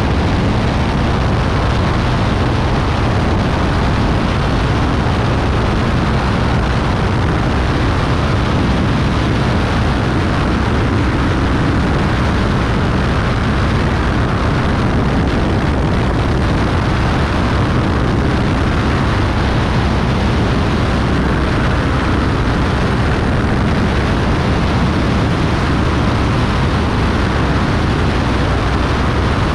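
Beechcraft Bonanza B35's flat-six piston engine and propeller droning steadily in flight through a banking turn onto final approach, the power holding even with no change.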